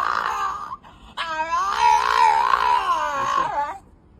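An upset dog making long, wavering howl-like moans: one trails off in the first second, and a second begins about a second in with a quick warble and runs for over two seconds.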